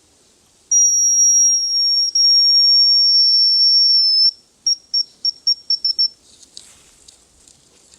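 Hazel grouse whistle song: one long, thin, high-pitched note held for about three and a half seconds, dipping slightly at its end, then a quick run of about eight short pips at the same pitch.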